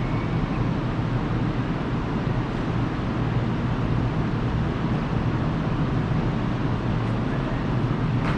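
Steady low rumble and hum of a Kintetsu electric train at the station platform, holding an even level throughout.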